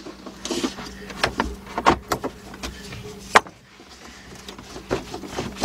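Negative battery cable terminal being worked onto a car battery post: scattered metal clicks and knocks, the sharpest about three and a half seconds in.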